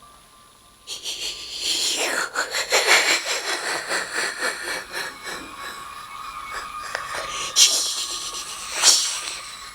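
An evil-laugh sound effect: a long run of rapid, breathy laugh pulses that starts about a second in, with two sharp breaths near the end.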